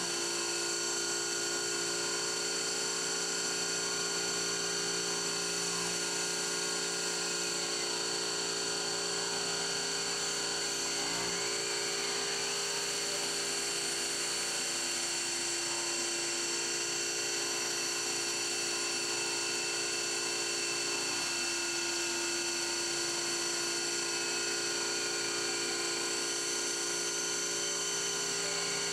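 CNC mill spindle running a 1/4-inch three-flute cobalt end mill at about 5900 rpm, cutting aluminum steadily under a hiss of air blast. It is a continuous whine of several steady tones, and their pitch shifts slightly about a third and two thirds of the way through.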